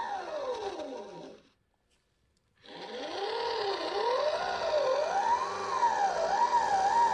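Homemade electronic engine-sound simulator imitating a Subaru EJ20 boxer with equal-length exhaust, its sound rung through a steel plate to mimic the EJ20's metallic timing-belt whine. The pitch falls as the revs drop, cuts out for about a second, then rises and falls in repeated free-revving blips.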